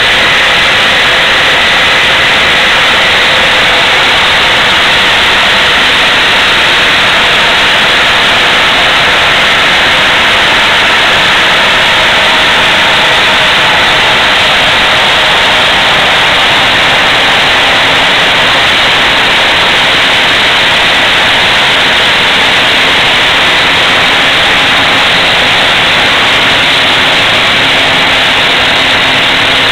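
Several Mamod toy stationary steam engines steaming together, giving a loud, steady hiss of escaping steam and exhaust.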